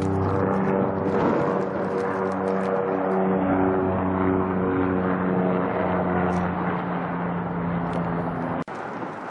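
Bell 407 helicopter in flight, heading away overhead: a steady drone made of several held pitches. Near the end the sound cuts out for an instant and returns quieter, as an even rush.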